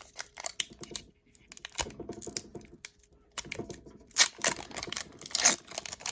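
Hockey trading cards handled by hand: cards slid and flicked through a pack, with irregular papery clicks and rustles that grow busier and louder about halfway through.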